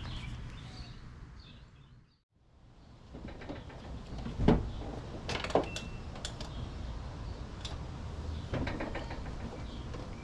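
Hand tools clicking and clinking against metal in scattered knocks, one leaving a short metallic ring, as they work on a broken bolt. Near the start the sound fades briefly to silence.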